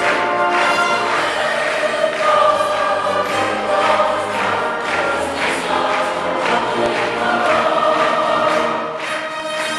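Large church choir singing, with long held notes.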